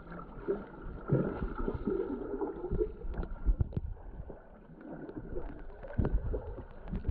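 Muffled underwater noise picked up by a GoPro held below the surface: water gurgling around the camera, with irregular knocks and taps.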